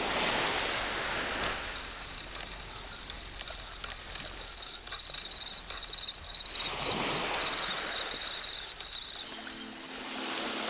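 Small waves washing up on the shore, swelling twice, with a faint high chirring tone through the middle. Background music comes in near the end.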